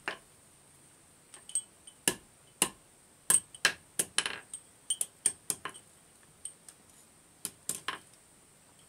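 About fifteen irregular, sharp metal-on-metal clinks and taps, each with a brief high ring, and a short scrape about four seconds in.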